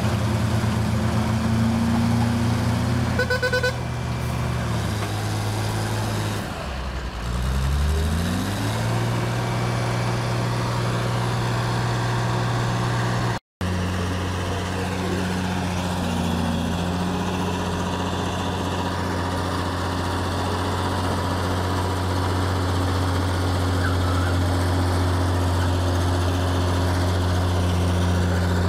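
Heavy diesel engines of a loaded logging truck and a crawler bulldozer running steadily, with one engine revving up in a rising pitch about seven seconds in. The sound cuts out for an instant about halfway, then the steady engine drone carries on.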